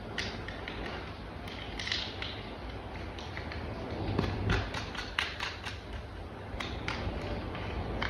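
Light, irregular clicks and taps of hard plastic toy parts being handled and fitted together, coming faster about halfway through.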